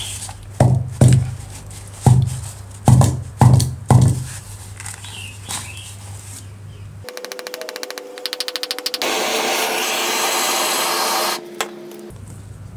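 Sandpaper rubbed by hand in quick back-and-forth strokes over the drill's metal motor housing, about ten strokes. Later a power tool starts with a fast rattle, runs steadily and loudly for about two seconds, and stops suddenly.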